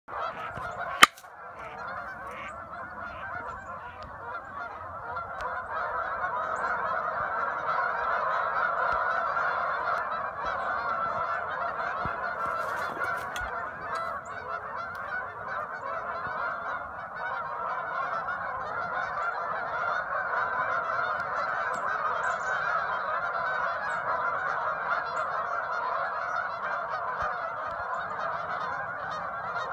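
A large flock of geese honking together in a dense, continuous chorus that builds over the first few seconds and then holds steady. There is a single sharp click about a second in.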